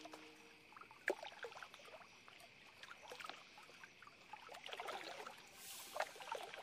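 Faint splashing of feet wading through a shallow, rocky river, irregular splashes growing busier near the end, over the steady rush of water running over stones.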